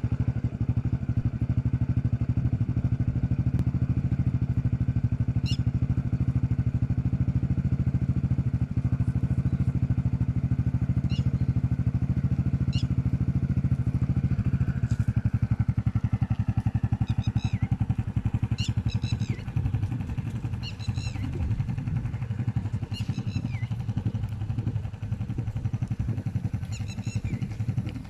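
Motorcycle engine idling on its stand, a steady low running note that grows less even in the second half. Birds chirp repeatedly over it, more often in the second half.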